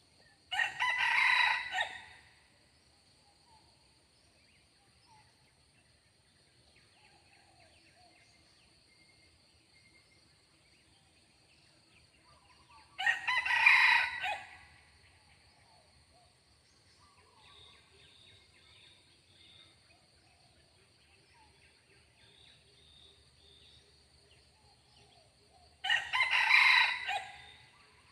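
Red junglefowl rooster crowing three times, about twelve seconds apart, each crow under two seconds long.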